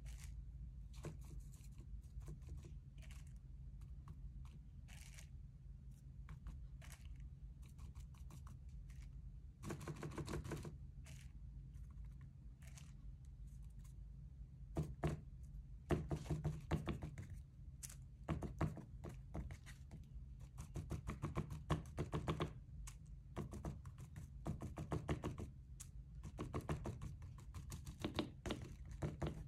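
Faint, irregular taps, clicks and rustles of hand work at a table, busier in the second half, as gold leaf is handled and pressed onto glued areas of a painting, over a steady low room hum.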